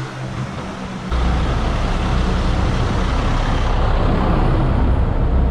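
Busy city road traffic. About a second in, a heavy vehicle's low engine rumble comes in suddenly and stays loud and steady.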